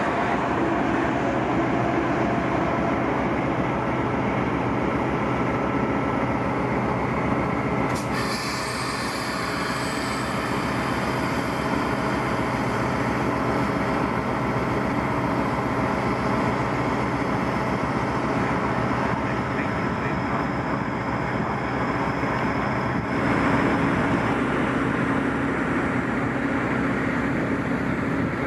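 Trenitalia electric trains running through a station: a steady rumble of wheels on rails that changes abruptly about eight seconds in and again near the end, with a faint high whine after the first change.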